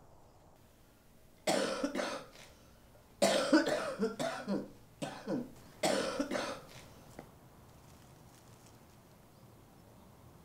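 A person coughing in three fits, a short one about a second and a half in, a longer run of several coughs about three seconds in, and another short fit about six seconds in, followed by a small click.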